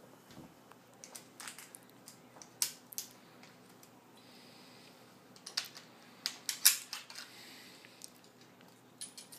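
Kel-Tec firearm being taken apart by hand: irregular sharp clicks and clacks of metal and polymer parts knocking and sliding against each other, with a brief scrape around four to five seconds in and a burst of loud clicks about six and a half seconds in.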